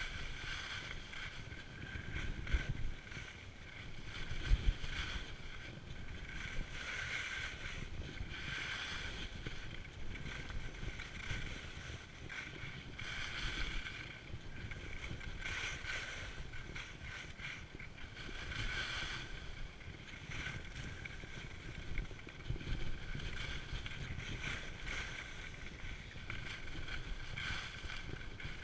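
Skis sliding and carving over packed snow, a scraping hiss that swells and fades with each turn, about every two seconds, over low wind rumble on the microphone.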